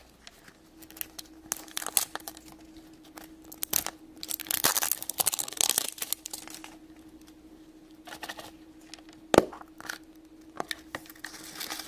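Thin plastic wrapping crinkling and tearing in irregular bursts as a plastic heart-shaped surprise case is unwrapped and pried open, with a single sharp snap about nine seconds in as the case pops open.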